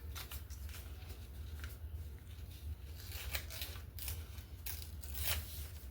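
Scrap paper rustling and being torn in a series of short rips, over a steady low hum.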